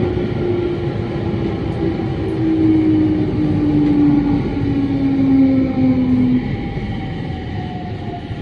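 Sotetsu 10000 series electric train, in its original unrenewed form, heard from inside the car as it slows into a station: the traction motors' whine glides steadily down in pitch and dies out about six and a half seconds in, over the rumble of wheels on the rails.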